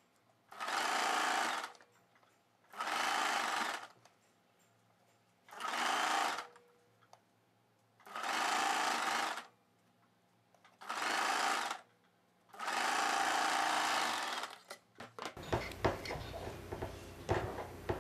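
Wonder Stitch electric sewing machine running in six short bursts of one to two seconds each, stopping between them, as it sews a loose stitch along a folded hem edge of sequined fabric. Light clicks and rustling of the cloth being handled near the end.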